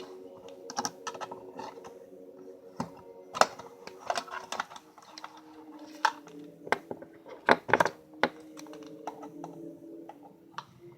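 Irregular small clicks and taps of light metal parts being handled and fitted together on a tin-plate toy locomotive, with a few sharper knocks about three and a half seconds in and again near eight seconds. Faint background music underneath.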